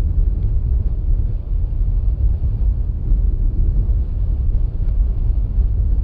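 Wind buffeting the camera microphone on an exposed granite summit: a loud, gusting low rumble.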